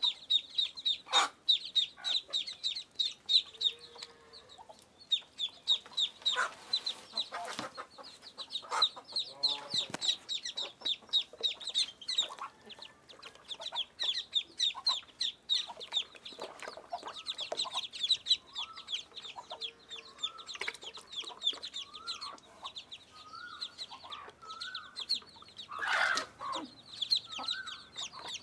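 Young chicks and Muscovy ducklings peeping rapidly and without pause, with a mother hen clucking now and then.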